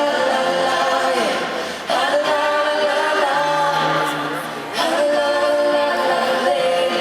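Live concert sound from the audience: several voices singing long held chords in close harmony, a cappella, moving to a new chord about two seconds in and again near five seconds.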